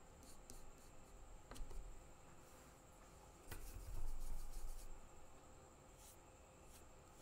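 Quiet handling sounds of watercolour painting: a couple of small ticks and a brief louder rubbing about three and a half seconds in, as a brush is worked in a plastic pan palette.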